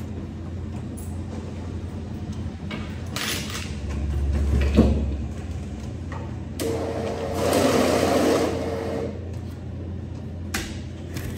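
Banknote counting machine whirring for about two seconds as it runs notes through, with a steady tone in the whirr. A single sharp knock comes a couple of seconds before it, over a low steady hum.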